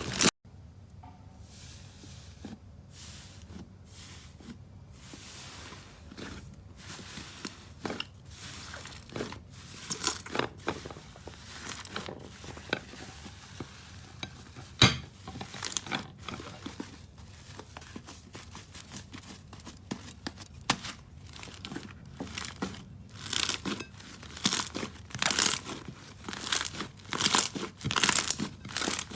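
Slime being squeezed and pulled, making crisp crackling and crunching pops, thicker and louder in the last several seconds.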